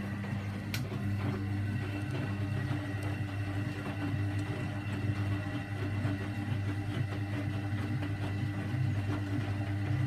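Hoover Electron A3254 washing machine on a Cotton 60 wash, its motor turning the drum of wet laundry with a steady hum.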